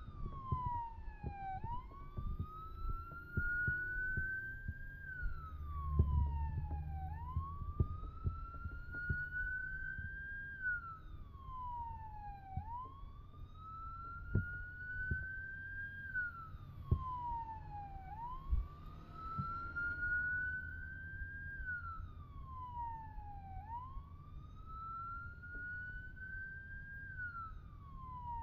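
Electronic siren wailing, its pitch climbing slowly and then dropping back about every five and a half seconds, five cycles in all. A low rumble with occasional thumps runs underneath.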